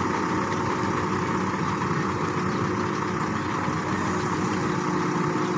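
Heavy construction machine's diesel engine running steadily at an even pitch.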